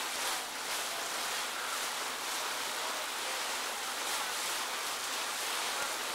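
Steady rushing noise of wind and water around a boat moving across a choppy lake, with no clear engine note.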